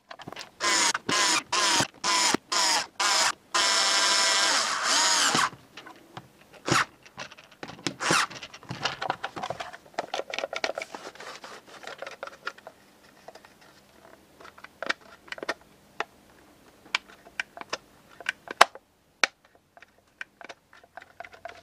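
Bosch PSR Select cordless screwdriver run in a quick string of short bursts, then held for about two seconds, driving the screws back into the Gerni pressure washer gun's housing. After that, clicks and knocks of plastic parts being handled.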